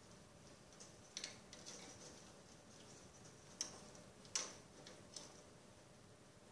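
Faint scattered clicks and taps, four or five in all, the loudest about four and a half seconds in: a parrot's beak and a small ring knocking against a wooden stick perch as the bird works the ring off it.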